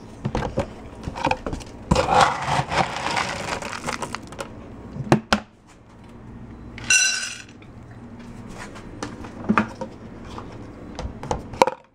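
Dry dog kibble rattling as it is scooped out of a plastic storage bin, with clicks and knocks from the bin and cabinet. A brief squeak comes about seven seconds in.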